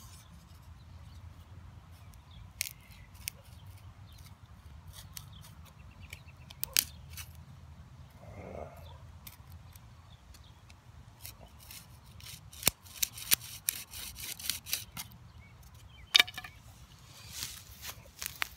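Dry wooden clicks and scrapes of a hand-drill spindle and tree-root hearth board being handled and set in place, with a quick run of clicks in the second half.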